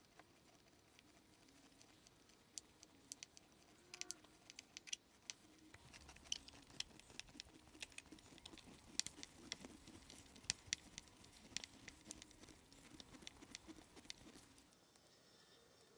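Hand screwdriver turning a slotted screw through a cast-iron bracket into a wooden table: faint, irregular clicks and ticks as the blade works in the slot and the screw turns, most of them between about two and fourteen seconds in.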